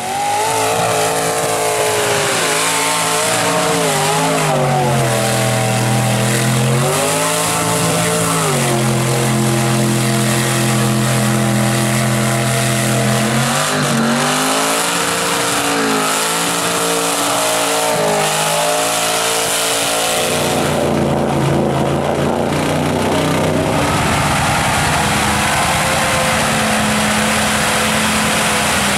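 Mud trucks' big engines revving through the mud pit, pitch climbing and falling and held at high revs for a few seconds at a time. About twenty seconds in the sound changes to a rougher, noisier engine.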